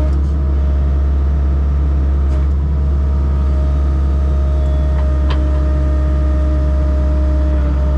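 Excavator diesel engine running steadily with a constant droning hum and a steady tone above it. A single sharp click about five seconds in.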